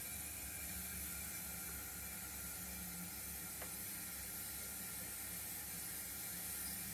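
O gauge model tank locomotive creeping forward, its electric motor and gears giving a faint, steady whir with wheel noise on the rails. There is one faint click about halfway through.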